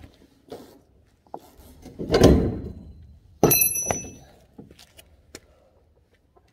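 Tool work on a golf cart's metal frame: a heavy thump about two seconds in, then a sharp metallic clank with a short ring, and a few small clicks, as an Allen wrench is worked on a tight screw that the owner thinks was Loctited.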